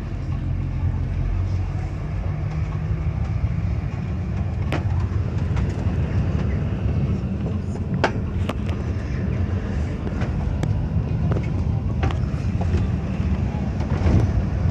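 Bus engine running as the bus drives away, heard from inside the cabin as a steady low drone that builds slightly. Several sharp knocks and rattles, likely from the bus body, cut in now and then.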